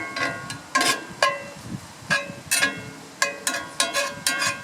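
Metal spatula striking and chopping sausage in a pan: a dozen or so irregular sharp clinks, each ringing briefly.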